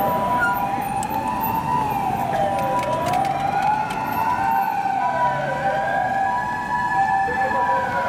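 An emergency vehicle's wailing siren, its pitch sweeping up and down about every three seconds, with two steady tones held underneath.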